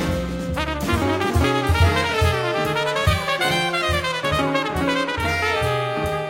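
Music led by brass instruments, trumpets among them, over a bass line with a steady beat.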